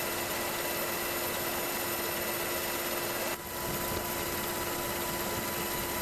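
Steady drone of aircraft engine noise with constant whining tones over a broad rush, with a brief dip about three seconds in.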